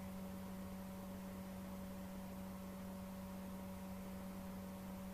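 Flour-dredged rabbit pieces sizzling steadily in hot canola oil in a skillet, an even hiss with no splashes or pops, under a steady electrical hum.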